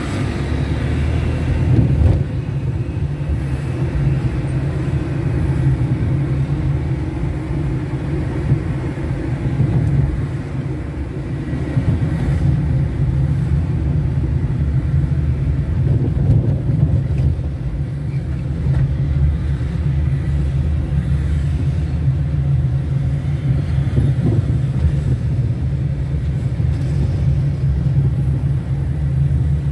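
Steady low rumble of a car's engine and tyres while driving, with no distinct events.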